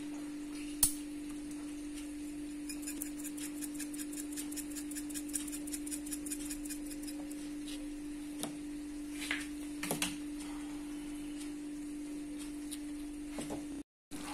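Kitchen sounds as a bowl of crushed tomato and garlic is seasoned: a steady low hum throughout, a sharp click about a second in, then a run of quick light ticks for about three seconds and a few soft knocks later on.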